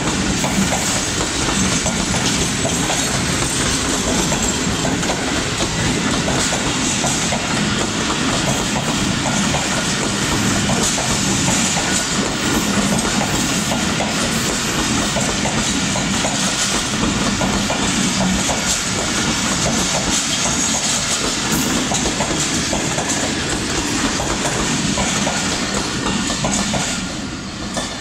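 Pakistan Railways Tezgam Express passenger coaches rolling past close by, their wheels clattering over the rail joints in a steady clickety-clack. The noise falls away near the end as the last coach passes.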